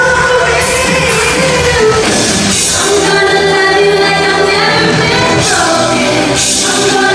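Live pop-rock song with singing, performed by a band in a large hall.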